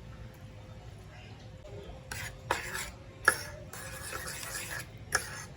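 A utensil stirring and scraping in a pan or bowl, with several sharp clinks against it, starting about two seconds in; the loudest clink comes around the middle.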